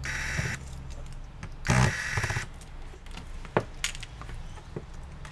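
Small electric screwdriver whirring in short runs: briefly at the start, then louder about two seconds in, followed by a few sharp clicks.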